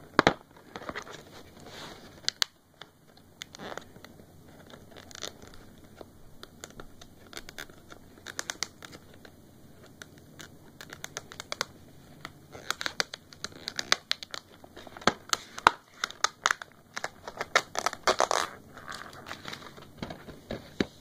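Packaging on a DVD case being crinkled, scratched and torn open off camera: a long run of irregular crackles and sharp clicks, thickest in the second half.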